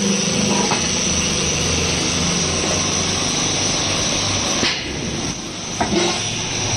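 Hydraulic scrap-metal baler running steadily with a hum and hiss while its hydraulic cylinder closes the lid over a load of steel wire. The noise drops a little just before five seconds in, and a sharp metal knock near six seconds comes as the lid shuts.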